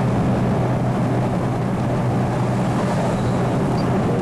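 Car cruising on a motorway, heard from inside the cabin: a steady low drone of engine and road noise.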